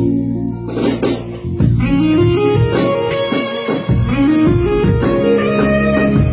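Band music: a held keyboard chord, then from about a second and a half in guitars and a steady beat enter and play on.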